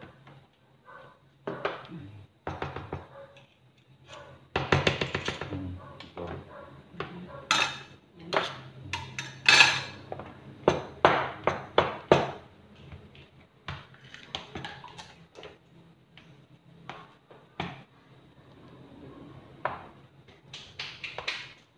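Metal spoons scraping and clinking irregularly against a plastic container while mashing cooked sweet potato with margarine.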